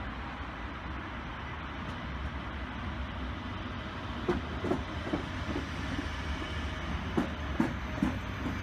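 DB Class 425 S-Bahn electric multiple unit pulling out and rolling past under a steady rumble, its wheels knocking over the track in a string of short clacks from about halfway through.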